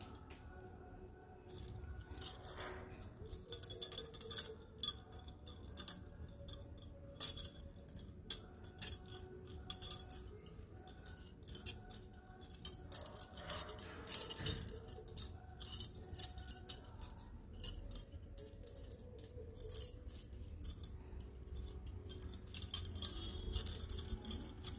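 Glass bangles clinking and jingling against one another as they are handled, in quick irregular clicks.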